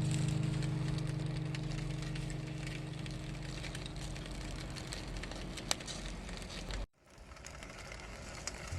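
A fire crackling with scattered sharp pops, under a held music chord that slowly fades away. Near the end the sound cuts out for a moment and the crackling comes back.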